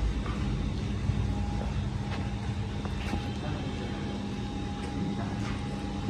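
A steady machine hum: a low drone with a faint, higher steady tone, and a few light clicks.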